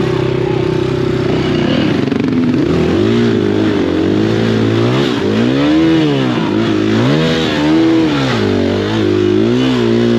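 KTM 500 EXC-F single-cylinder four-stroke dirt bike engine, idling steadily for about two seconds and then revved up and down about five times as the bike is driven out of a rut that reaches the footpegs.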